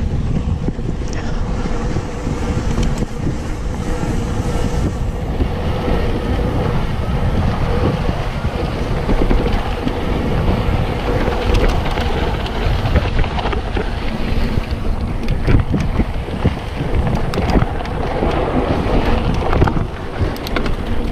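Wind buffeting the microphone over the rumble of mountain bike tyres on a dirt trail, with frequent small clatters and knocks from the bike jolting over rough ground.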